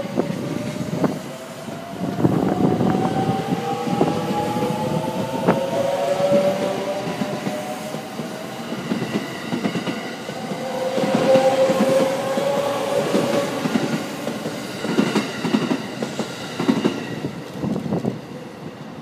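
Limited express Shirasagi electric multiple unit (681/683 series) running past and accelerating: the whine of its motors climbs steadily in pitch twice, over the rumble and repeated clicking of wheels over rail joints.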